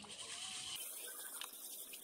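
Faint water sloshing and trickling as an unglazed clay pot is rinsed and scrubbed by hand in canal water, with small clicks from about a second in.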